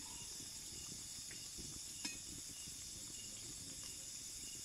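Oil sizzling steadily as pieces of gaja dough deep-fry in an iron karahi, with one sharp click of the metal slotted spoon against the pan about two seconds in. A faint insect chirp repeats about twice a second behind it.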